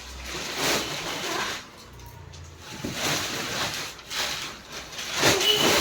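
Irregular rustling and shuffling in uneven bursts as a mattress, its fabric cover and plastic wrapping are handled and shifted.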